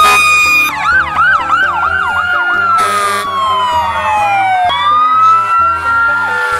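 Fire truck sirens in a fast yelp, about four sweeps a second, changing to a slow wail that falls and then rises again, with several sirens overlapping. A steady held tone ends under a second in, and background music with stepped low notes plays underneath.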